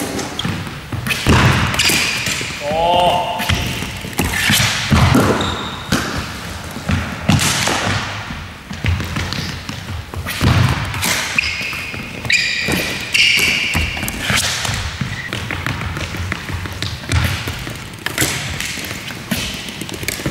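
Floorball drill: repeated sharp knocks of sticks striking the plastic ball during shots and stickhandling, with thuds of the ball against the goal and boards, and a few short high squeaks in between.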